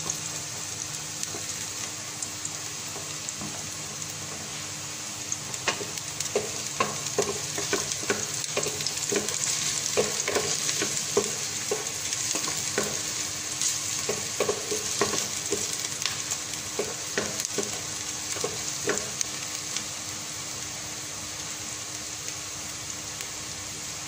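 Chopped onion and garlic sizzling in hot oil in a stainless steel pot, a steady hiss. Through the middle stretch a wooden spoon stirs them, knocking and scraping against the pot's sides and bottom.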